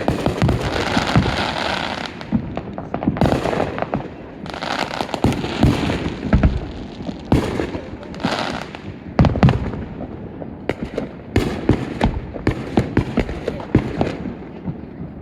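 Fireworks going off: an irregular, rapid string of sharp bangs and pops, with several stretches of dense crackling.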